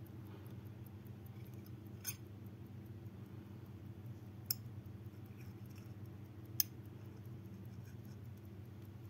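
Soviet-made Serkisof mechanical pocket watch ticking faintly and rapidly, several ticks a second, with three sharper clicks spread out a couple of seconds apart. A steady low hum runs underneath.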